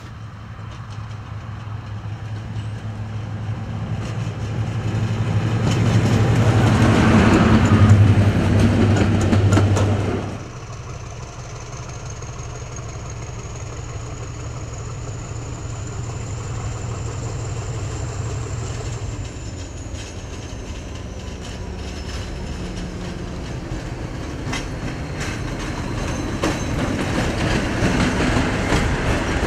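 Diesel locomotive passing with its engine working hard, growing louder to a peak and then dropping away suddenly about ten seconds in. After that, train wheels roll over rail joints with a clickety-clack, and a thin high whine rises slightly and then falls.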